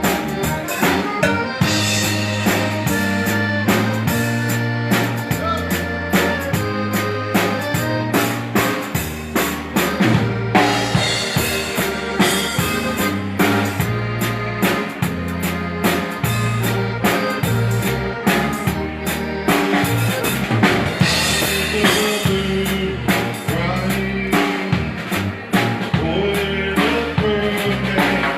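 A Texas Czech band playing live dance music, with sustained instrument notes over a stepping bass line and a steady drum beat.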